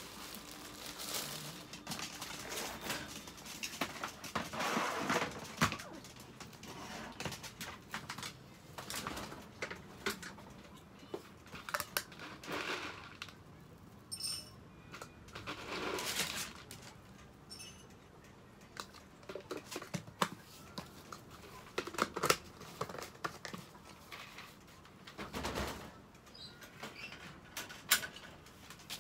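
Irregular rustling and crinkling of plastic packaging and a plastic tarp being handled, with scattered light clicks and knocks.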